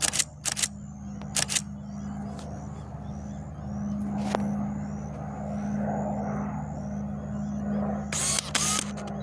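Pilatus PC-21 turboprop droning steadily as it circles overhead, swelling in the middle. A camera shutter fires in short bursts at the start, about a second and a half in, and again near the end.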